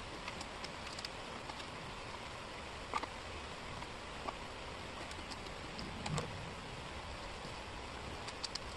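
Wooden jigsaw puzzle pieces tapping and clicking now and then as they are picked up and set down on the table: a handful of light, separate clicks over a steady hiss.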